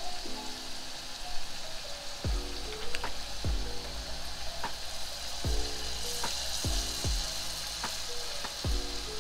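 Batter-coated cauliflower florets deep-frying in hot oil with a steady sizzle. Background music with a deep, falling bass beat plays underneath.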